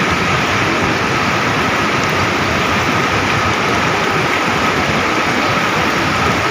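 Steady rushing noise of heavy rain and floodwater flowing through a street, with a faint steady tone above it.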